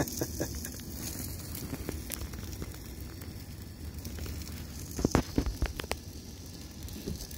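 Grill sizzling and crackling steadily, with a few sharp clicks about five seconds in.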